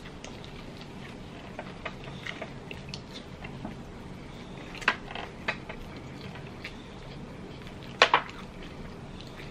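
Two people eating whole rotisserie chickens by hand: scattered small clicks and smacks as the meat is pulled apart and eaten, with two sharper clicks about five and eight seconds in.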